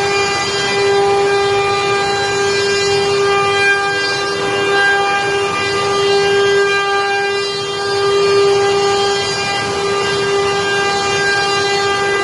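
CNC woodworking machine running steadily with its spindle whining at a constant pitch over a hiss, as it machines wooden chair legs.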